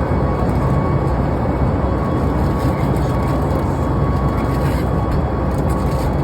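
Steady cabin noise of a Boeing 737 MAX in flight: its CFM LEAP-1B engines and the airflow make an even low rumble, with a faint steady whine above it.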